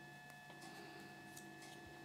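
Near silence: room tone with a faint steady hum and a few faint clicks from fingers handling a small plastic toy figure.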